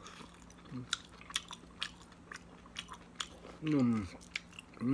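A man chewing a mouthful of rice and goat meat close to the microphone, with scattered wet mouth clicks. A short voiced hum comes about three and a half seconds in.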